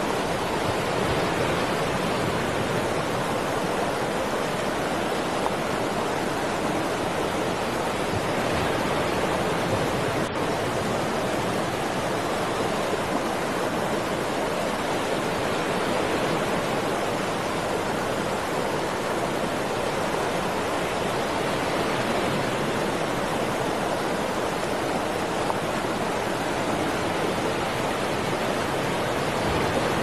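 Creek water rushing over rocks, a steady unbroken wash.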